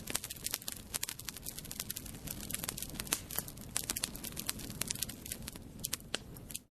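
Fire crackling, with many sharp irregular pops over a low steady rush of flames; it cuts off abruptly near the end.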